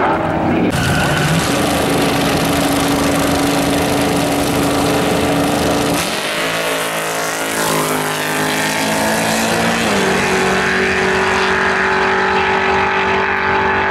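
Drag race cars running at full throttle down the strip, loud throughout. In the middle the engine pitch slides down and back up several times before settling into a steady high drone.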